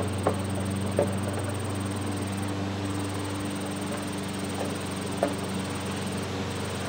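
A few sharp knocks and clinks from hand work on a wooden sill plate being fastened down to its concrete piers, spaced a few seconds apart, over a steady low hum.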